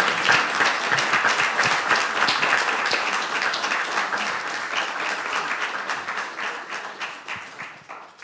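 Audience applauding, a steady crowd of hand claps that slowly dies away over the last few seconds.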